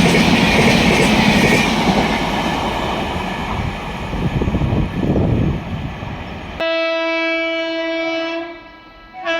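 Express train rushing past, its noise slowly fading; then it cuts abruptly to a WAP-7 electric locomotive's horn sounding one steady blast of about two seconds, followed by a short toot near the end.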